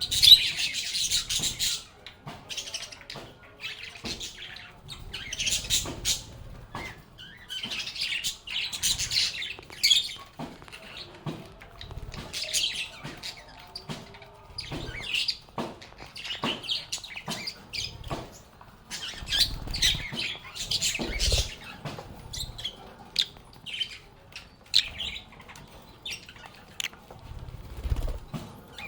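Pet lovebirds chirping and chattering in repeated bursts of rapid, high chirps with short pauses between them, with a couple of low thumps near the middle and near the end.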